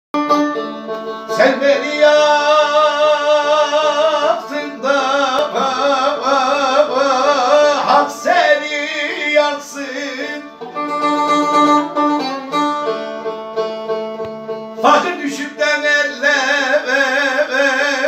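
A man singing an uzun hava, a free-rhythm Turkish folk song, in long wavering held notes. He is accompanied by a long-necked plucked lute with a round, banjo-like body.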